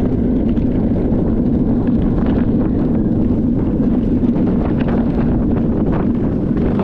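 Steady, loud rolling noise of a gravity luge cart's wheels on a concrete track at speed, with wind rushing over the microphone.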